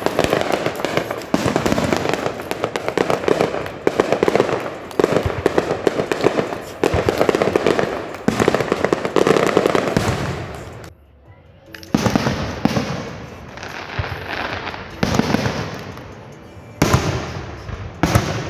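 Fireworks grand finale: a rapid, continuous volley of bangs and crackles from aerial shells. About 11 seconds in it drops off suddenly, then separate booms follow every second or so.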